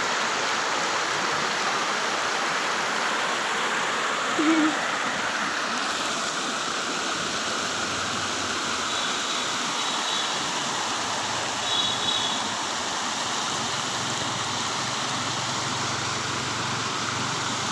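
Fast-flowing floodwater rushing over a road, a steady churning rush of water. A brief louder short sound breaks through about four and a half seconds in.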